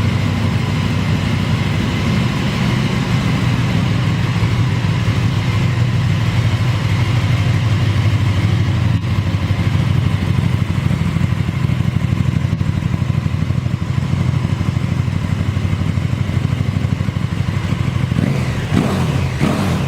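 KTM 1290 Super Duke R's 1301 cc 75° V-twin idling through an Akrapovic exhaust with a steady, fast, loud pulse; near the end the throttle is blipped and the revs rise and fall.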